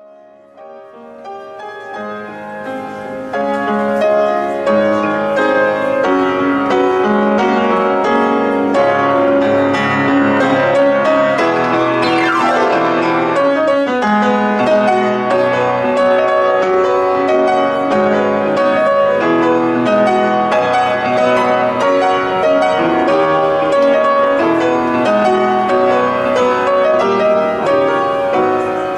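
Piano music with many quick notes, fading in over the first three seconds and then holding steady. A sweep falling in pitch cuts across it about twelve seconds in.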